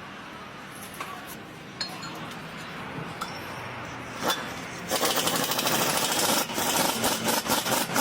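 A few light metal clinks of tools, then about five seconds in a pneumatic impact wrench starts hammering loudly in a rapid rattle and keeps going.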